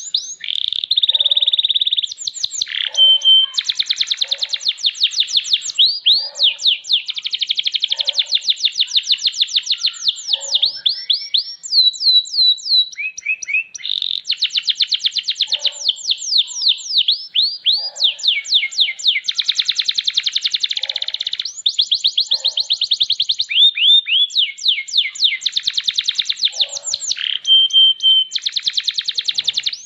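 Domestic canary singing a long, nearly unbroken song of fast trills and rapid downward-sweeping notes, with only short pauses between phrases.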